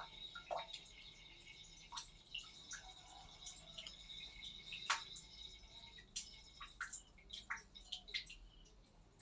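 Quiet room tone with faint, irregular small clicks and ticks, one a little louder about five seconds in, over a faint steady high-pitched whine.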